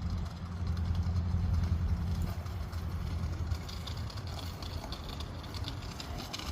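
An engine running with a steady low hum, strongest in the first couple of seconds and then easing off. Faint crackling noise comes in over it partway through.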